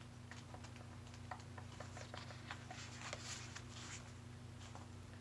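Faint rustling and soft ticks of paperback pages being leafed through by hand, irregular and light.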